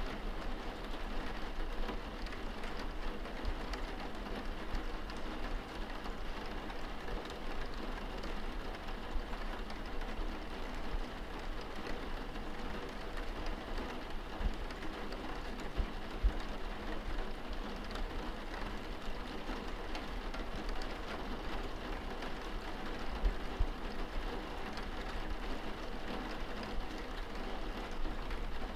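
Steady rain falling on window glass, heard from inside the room, with a few louder individual drop taps and a low rumble underneath.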